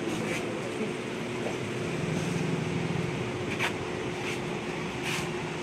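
Steady mechanical hum with a faint constant tone, broken by a few short hissing scuffs.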